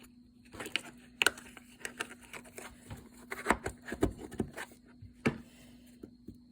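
Slime being worked by hand, giving a run of irregular sticky clicks and crackles.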